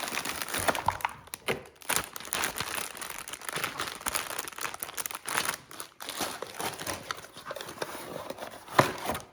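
Lego set packaging being handled: the plastic bags of pieces and the cardboard box crinkle and rustle continuously, with many small crackles and a sharper one near the end.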